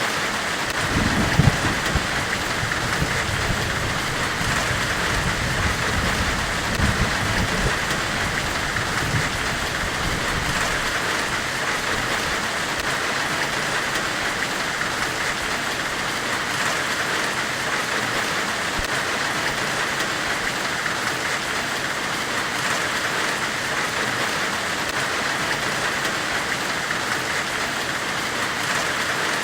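Steady forge-weld hiss, an even white noise, with low rumbles during the first several seconds.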